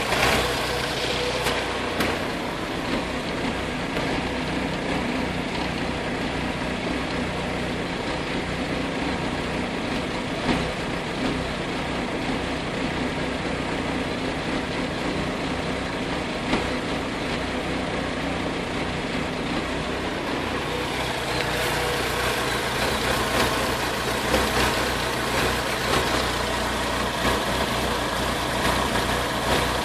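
Vauxhall VX220's four-cylinder engine running at idle with a misfire, with a few irregular peaks in an otherwise steady sound. It gets a little louder and brighter about two-thirds of the way through.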